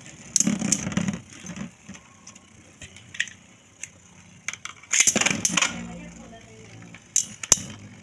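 Metal and plastic Beyblade spinning tops clashing and skittering around a plastic bowl stadium: sharp clacks and rattles, with two louder clattering stretches, one about half a second in and one about five seconds in.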